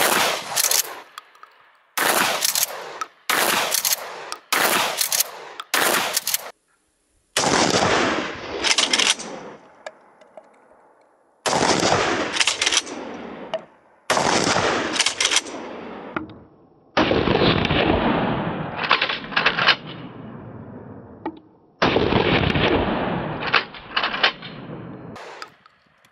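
Remington 870 Marine 12-gauge pump shotgun firing 3-inch slugs: five heavy shots a few seconds apart, each followed by the pump being worked to chamber the next shell. The first few seconds hold a run of sharp clacks before the first shot.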